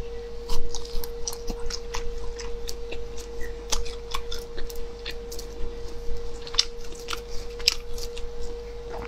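Close-miked chewing of grilled chicken skewer meat: irregular wet smacks and clicks of the mouth over a faint steady hum.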